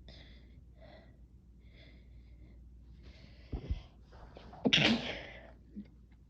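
A woman sneezing from chhinkni snuff. Short faint breaths come first, then a smaller burst about three and a half seconds in. A sharp, loud sneeze follows near the five-second mark.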